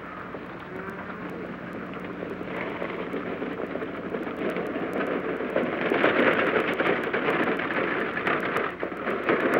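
Horse-drawn wagon approaching at speed: a dense clatter of hooves and rattling wheels that grows steadily louder, loudest near the end.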